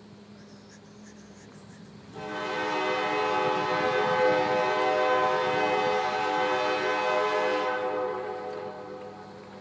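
Locomotive air horn of a GP35 diesel sounding one long chord, starting abruptly about two seconds in and fading away near the end, from a train approaching out of sight.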